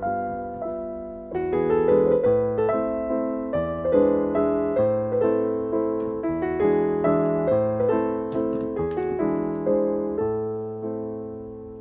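Background piano music: a gentle run of piano notes, each struck and fading.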